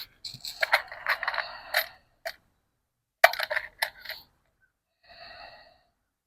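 Light metallic clinking and rattling in two quick clusters, like wire fencing and tools being handled during stapling and cutting. A brief faint whine follows about five seconds in.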